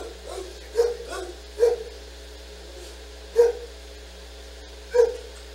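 A dog barking in short single barks: a quick run of three, then two more spaced out.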